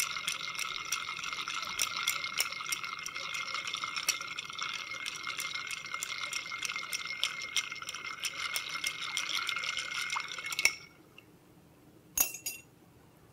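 Bar spoon stirring ice in a cut-glass mixing glass to chill a cocktail: a continuous rattle and clinking of ice against the glass, with a steady ringing tone from the glass. The stirring stops about eleven seconds in, and one brief clink comes near the end.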